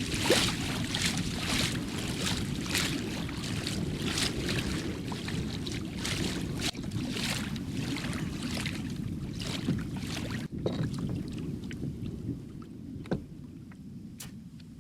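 Water noise around a small plastic pedal kayak moving on a lake, with rhythmic swishing about twice a second that stops about ten seconds in.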